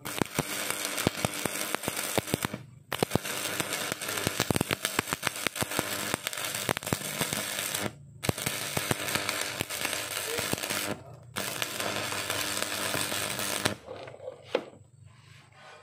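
Arc welding: a dense, crackling and spitting arc that breaks off and strikes up again three times, then stops about three-quarters of the way through, followed by a single knock.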